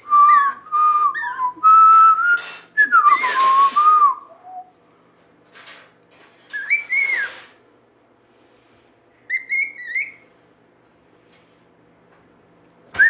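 Pet bird whistling: a run of warbling whistled notes mixed with harsher, scratchy calls in the first few seconds, then two short, higher whistled phrases after quiet gaps.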